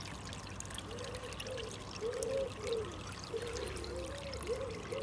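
Water trickling and pouring steadily from the pond's slipway filter return into the raised pond. A run of low, rising-and-falling tones sounds over it from about a second in.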